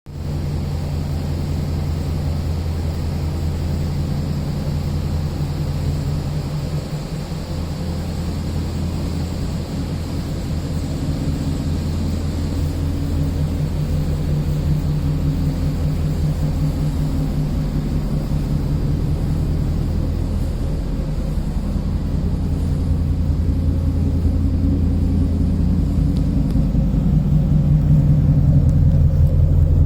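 Ford Mustang GT V8 running through a Borla Touring exhaust, a steady low rumble that grows a little louder in the last few seconds.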